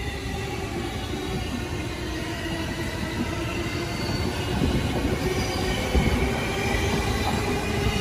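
JR Keiyo Line electric commuter trains moving slowly along the tracks, with wheels squealing in several thin high tones over the rumble of wheels on rail. The rumble grows a little louder from about halfway through.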